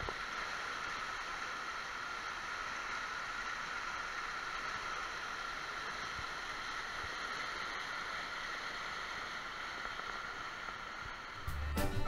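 Small waterfall splashing over rocks close by, a steady rush of water. Music starts just before the end.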